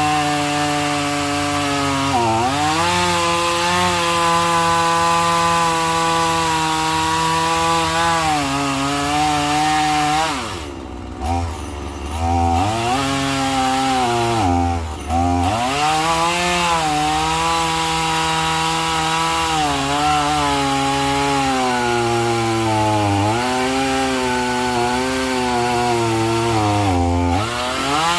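Two-stroke chainsaw running at high revs, cutting through the root ball of an uprooted oak. The engine pitch sags each time the chain bogs in the wood. About ten seconds in the revs drop and the saw quietens for a couple of seconds, and it dips again briefly near fifteen seconds.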